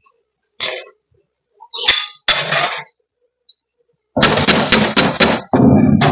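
Kitchen clatter of a spoon and food containers clinking and knocking as spoiled leftovers are emptied out. There are two sharp knocks about two seconds in, then a quick run of about five knocks with rattling near the end.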